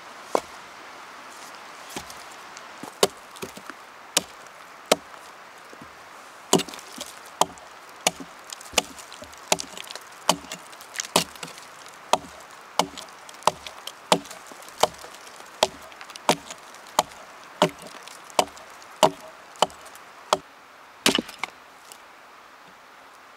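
Wood being chopped with a blade: a long run of sharp single strikes, sparse at first, then settling into a steady rhythm of about three every two seconds, with a quick cluster of hits near the end.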